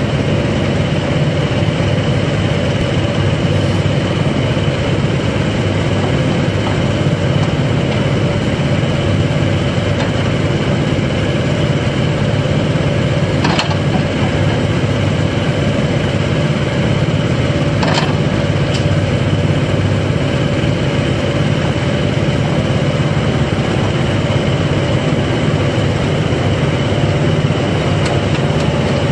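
A 2014 Case CX31B mini excavator's 28.4 HP Yanmar diesel runs steadily while the boom and bucket are worked. Two sharp knocks come partway through.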